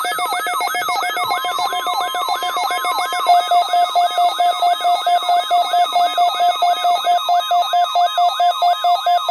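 Weather radio receiver's alert alarm going off for a Required Weekly Test. It sounds as a loud electronic warble of repeating sweeping beeps, about three a second, over a steady pulsing tone.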